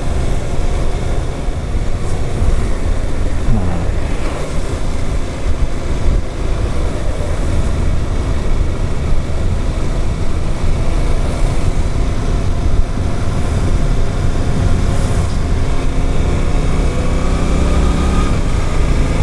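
Riding sound of a Suzuki GSX-8S's 776 cc parallel-twin engine, mixed with steady wind rush on the microphone. The engine note drops once about three and a half seconds in and climbs again near the end.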